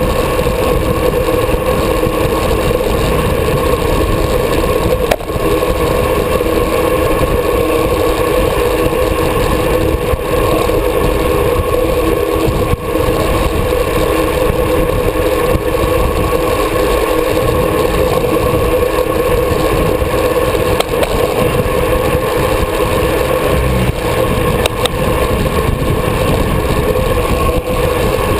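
Steady wind rush and road rumble on an action camera mounted on a road bike's handlebars while riding at speed, with a steady hum running under it.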